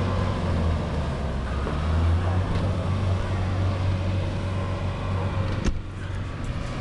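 Engines of police armoured vehicles, a water-cannon truck and an armoured jeep, running with a steady low drone. A single sharp knock comes about five and a half seconds in.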